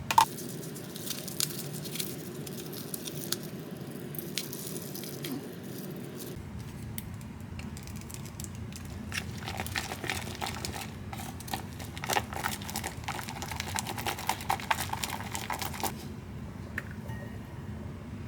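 Small handling noises: crinkling, tearing and light clicks, thickest in the second half, over a low hum that stops about six seconds in.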